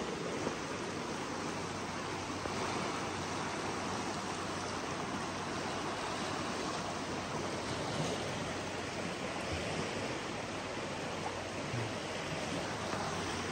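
Steady rush of river water, an even noise without breaks.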